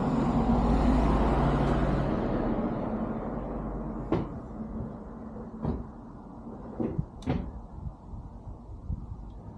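A low rumble that swells and fades over the first three seconds, followed by four sharp knocks.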